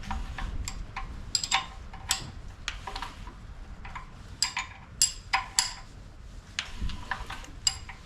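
Irregular metallic clinks and clicks of hand tools, such as sockets and wrenches, being picked up and knocked together. Each clink has a brief ring, and the loudest come about five seconds in.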